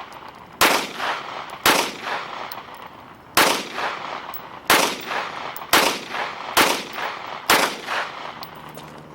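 Seven gunshots from a firearm fired one shot at a time, about a second apart with uneven gaps, each shot trailing off in a short echo.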